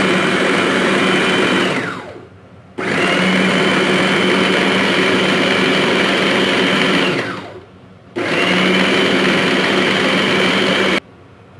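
Electric food chopper's motor running in pulses as it grinds pieces of thick roti into coarse crumbs. It winds down with a falling pitch about two seconds in, starts again, winds down again about seven seconds in, restarts, and cuts off suddenly near the end.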